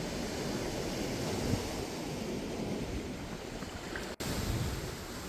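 Lake Huron waves washing steadily onto the shore, with wind buffeting the microphone. The sound drops out for an instant about four seconds in.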